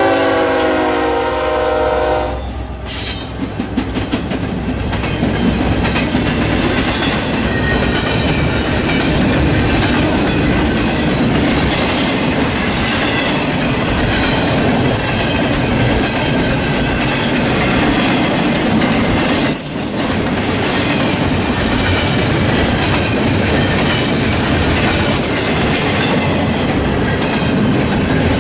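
Diesel freight locomotive's multi-chime air horn ending its blast about two seconds in, then the freight train rolling past: a loud, steady rumble of cars with wheels clicking over the rail joints.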